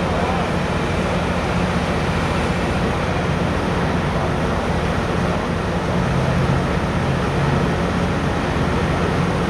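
Tri-Rail BL36PH diesel-electric locomotive idling at the platform: a steady engine hum with an even rumble, unchanging throughout.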